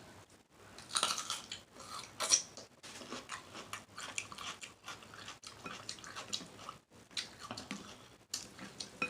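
A person eating close to the microphone: bites and chewing with wet mouth smacks and some crunching, in irregular clusters starting about a second in, loudest in the first couple of seconds.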